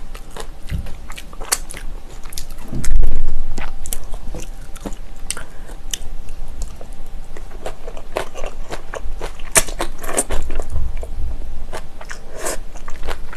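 Close-miked chewing of spicy bibimbap with crunchy vegetables, with wet mouth clicks and crackles throughout. A loud low thump about three seconds in.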